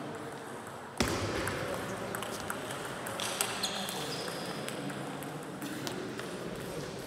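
Table tennis rally: the ball clicks off the bats and the table, with a sharp, loud hit about a second in followed by a string of lighter ticks.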